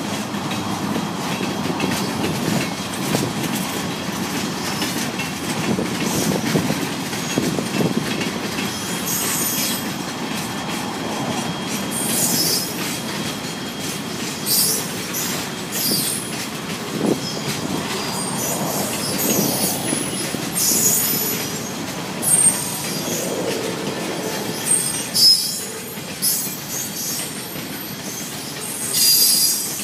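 Freight cars rolling past on steel rails, a steady rumble of wheels with short high-pitched wheel squeals every few seconds.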